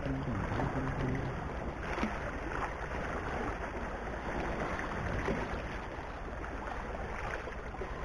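Steady wind and sea noise at the water's edge: wind rumbling on the microphone over small waves washing against the rocks.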